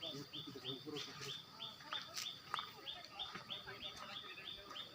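A bird calling a rapid, even series of short, high chirps, about four a second, each dropping slightly in pitch.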